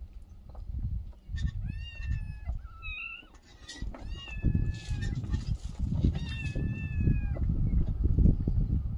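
Young kittens meowing: about four high-pitched calls, some rising and then held, over a low rumbling noise.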